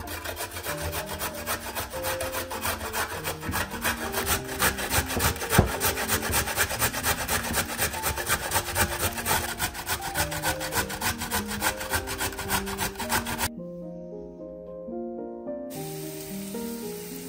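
A carrot grated on a stainless-steel box grater resting on a wooden cutting board: quick, regular rasping strokes, several a second, that stop about three-quarters of the way through. Near the end, diced onions start sizzling in a frying pan.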